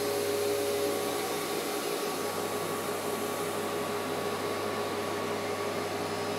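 Steady whooshing drone of a vacuum cleaner running as a load on a battery inverter under heavy draw, with a few faint steady tones over it.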